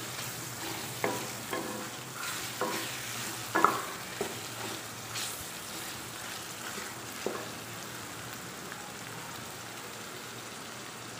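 Chicken pieces sizzling in oil with onions in a metal pot, being fried until their colour changes. A wooden spoon stirs them, scraping and knocking against the pot now and then through the first half, the sharpest knock about a third of the way in. After that only the steady sizzle is left.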